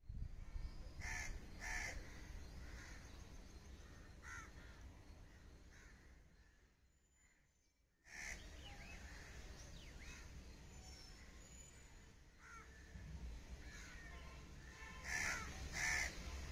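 Crows cawing now and then outdoors, a few scattered caws with two louder ones near the end, over a steady low rumble. The sound drops out to near silence for a moment in the middle.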